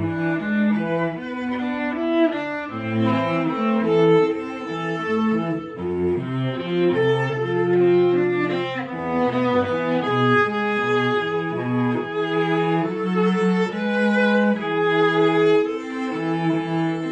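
A viola and a cello playing a duet, bowed in held notes, the cello's low line moving under the viola's melody.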